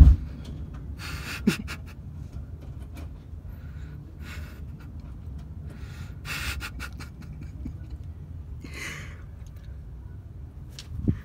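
A person breathing close to a phone's microphone, a breath every second or two, over a low steady rumble. There is a bump right at the start, with softer ones about a second and a half in and near the end.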